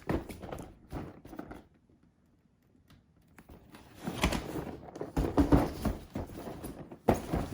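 Board game boxes and plastic-packed miniatures being handled: irregular knocks and rustling, with a short lull about two seconds in.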